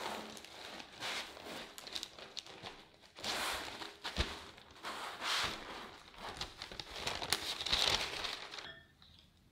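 Parchment baking paper rustling and crinkling in several swells as a cream-filled sponge cake is rolled up inside it, with one short soft knock about four seconds in. The rustling stops shortly before the end.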